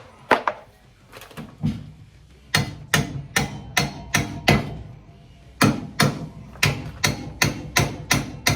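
Repeated hammer strikes, about three a second in runs broken by short pauses near two and five seconds in, driving a front suspension part into a tight fit.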